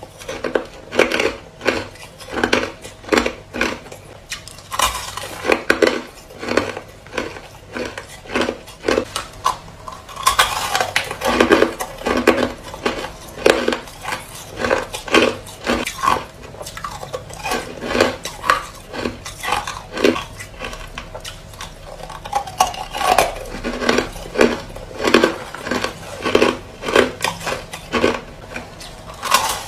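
Hard crushed ice being chewed close to the microphone: a steady run of crisp crunches, about two a second.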